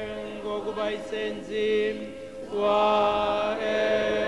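Background music of voices holding long, slow notes over a steady low drone, swelling louder about two and a half seconds in.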